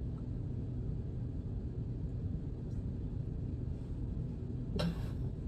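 Steady low background rumble, with one short scrape-like noise near the end.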